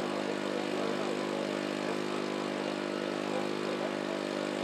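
An engine running steadily at constant speed, an even drone with no change in pitch.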